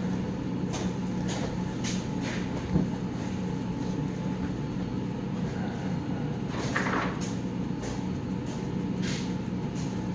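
Steady hum of commercial kitchen equipment, such as refrigeration and ventilation fans, with scattered light clicks and knocks. One sharper thump comes about three seconds in.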